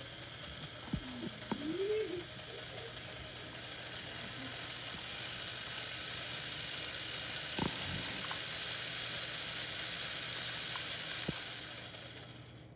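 LEGO Power Functions electric motor driving a gear train and spinning a shaft, giving a steady mechanical whir with a few faint clicks. It grows louder through the first few seconds, holds, then dies away near the end.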